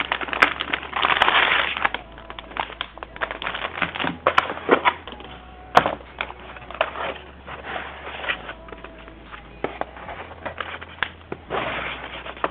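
Cardboard and plastic packaging of a motherboard box being handled and opened: a run of crinkling, rustling and sharp clicks, densest and loudest about a second in, then scattered clicks and rustles.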